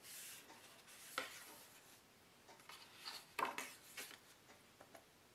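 Faint rustles and soft taps of cardstock flaps being lifted and turned by hand: a short one about a second in, and a couple more around three and a half to four seconds in.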